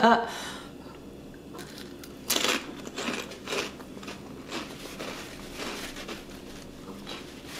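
Crisp crunching as a person bites into and chews a fried wheat-flour wheel snack (duritos) dressed in chili oil, a series of separate crunches with the loudest a couple of seconds in.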